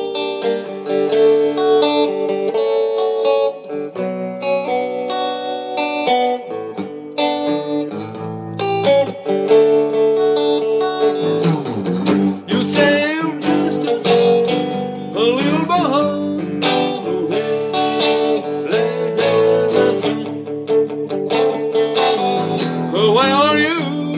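Hollow-body electric guitar playing an instrumental break: chords at first, then from about halfway a lead line full of bent, sliding notes.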